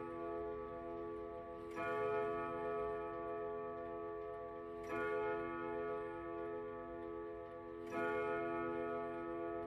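French Vedette wall clock's steel gong rods striking the hour: three slow, identical strokes about three seconds apart. Each rings on long and deep until the next.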